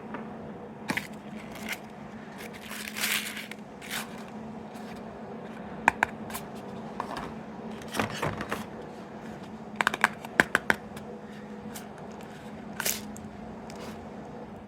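Small plastic capsule toys and their packaging being handled: scattered sharp plastic clicks, a few with a brief ringing tone, and short scraping, crinkling rustles, over a steady low hum.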